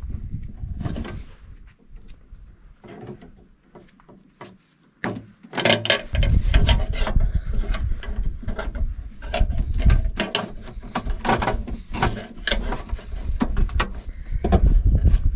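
Clicks, rattles and ratcheting of hand tools working on the metal parts of a breaker panel during wiring, with a low rumble underneath from about six seconds in.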